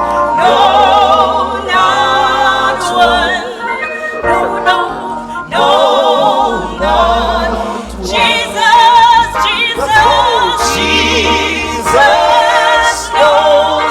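A man and a woman singing a hymn together with vibrato on held notes, over an instrumental accompaniment with low bass notes.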